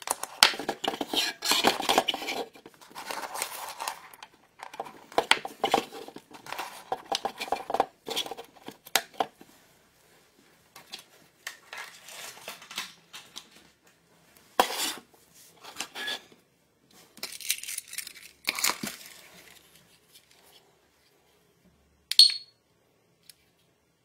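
Hard plastic and cable being handled and knocked on a wooden surface as a motion-sensor alarm unit and its power-adapter lead are unpacked and set down, in irregular bursts of clattering and rustling with pauses. Near the end there is a single short, sharp high beep.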